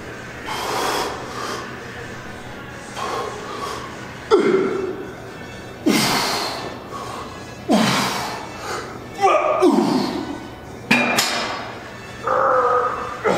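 A man breathing hard, with a run of short, forceful exhales and grunts about one and a half seconds apart, the effort of lifting reps.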